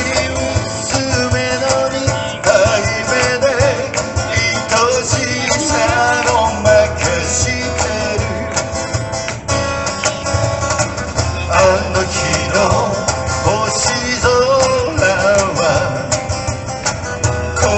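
A song sung in Japanese to strummed acoustic guitar, performed live.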